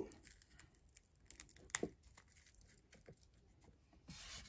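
Dried peony root being broken apart by hand over a mortar: faint, scattered crackles and small snaps, one sharper snap a little under two seconds in. A soft rubbing starts near the end.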